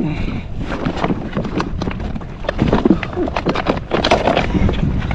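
Wind buffeting the microphone, with irregular knocks and scuffs as a freshly caught wahoo is wrestled into a fish bag on a jet ski.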